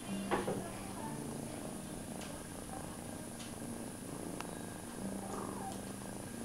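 Kitten purring steadily close to the microphone, a continuous low rumble, with a brief rustle near the start and a few faint clicks.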